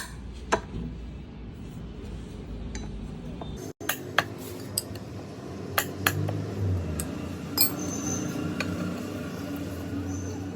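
A wrench clinking against the nuts of a motorcycle's steel rear sprocket as they are undone: a few sharp, spaced-out metal clinks. A steady low hum runs under it from about four seconds in.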